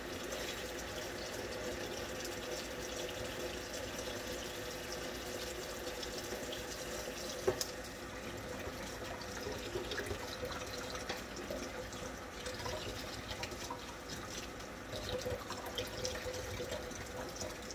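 Kitchen sink faucet running steadily while dishes are washed by hand, with a single sharp knock a little before halfway through.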